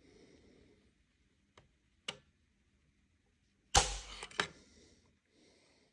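Weatherby Vanguard bolt-action rifle dry-fired with a trigger pull gauge: a couple of faint clicks, then a loud sharp snap as the trigger breaks and the firing pin falls, about four seconds in, followed by a second click. The stock trigger breaks at almost 6 pounds.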